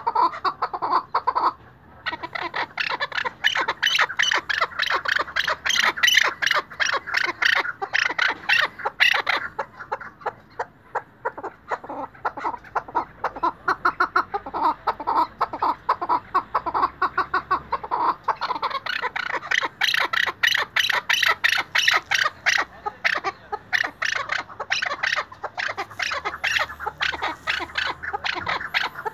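Chukar partridge calling: a long series of rapid, repeated chuck notes. The notes are loud through most of the stretch and softer for several seconds in the middle.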